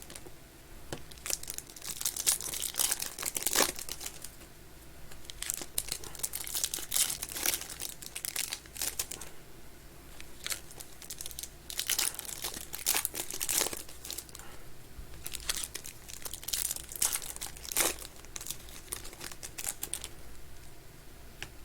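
Trading-card pack wrappers crinkling and being torn open, in irregular rustles and crackles.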